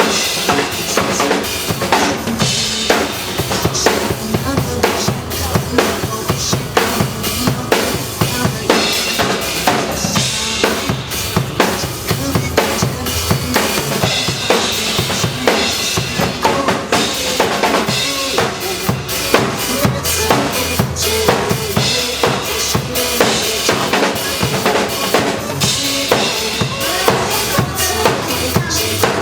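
Drum kit played live in a steady, driving beat of bass drum and snare strokes, over a pop song's backing music.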